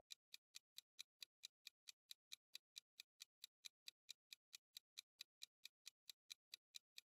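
Quiz countdown-timer ticking sound effect: a fast, even, faint clock tick, about four and a half ticks a second.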